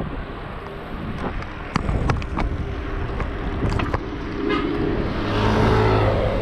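Road traffic heard from a bicycle: a few sharp knocks around two seconds in, then a motor vehicle's engine grows loud close by from about five seconds in.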